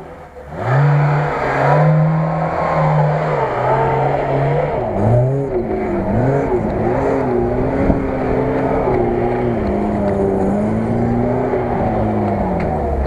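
Lada Niva's engine revving hard under load on a dirt climb, its pitch rising and falling again and again as the throttle is worked.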